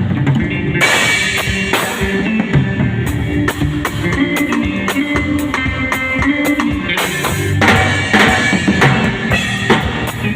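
Drum kit played over a backing song: kick, snare and rim hits in a steady groove, with cymbal crashes about a second in and again near seven seconds.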